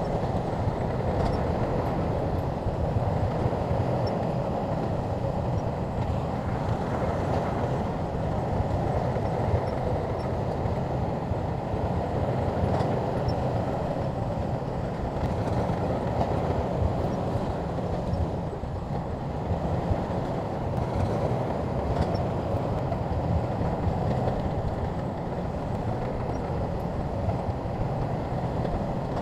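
Crawler bulldozer working: a steady diesel rumble mixed with the rattling clatter of its steel tracks, unbroken throughout.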